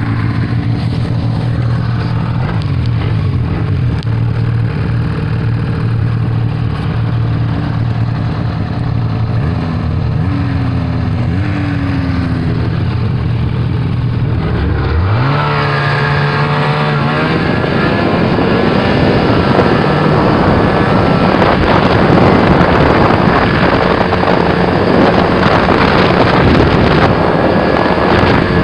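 Snowmobile engine running at low revs, then about halfway through revving up in a rising sweep as the sled accelerates away, and running steadily and louder at trail speed after that.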